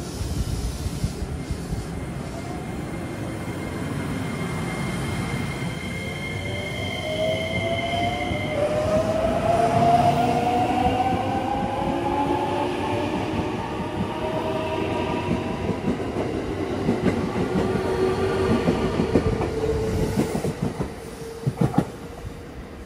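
JR West 321 series electric train pulling away: its traction motor whine climbs in pitch as a set of rising tones while it gathers speed. Then comes a rumbling run past with wheels clicking over rail joints, and a sudden loud knock near the end.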